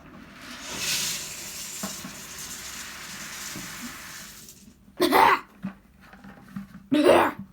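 Chicken feed pouring from a heavy bag, a steady hiss of pellets lasting about four and a half seconds. Then two short coughs, set off by the feed's bad smell.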